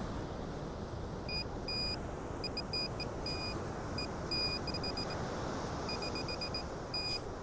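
Metal detector target tone: intermittent high beeps, some short and in quick runs, some held for a fraction of a second, signalling buried metal that turns out to be a bottle cap. Under them runs a steady low rush of noise.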